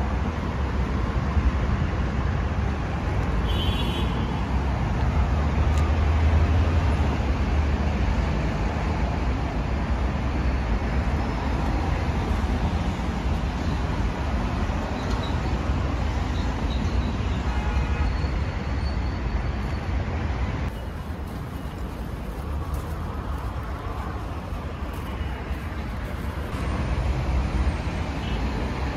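Road traffic noise: a steady low rumble of motor vehicles, a little quieter from about two-thirds of the way through.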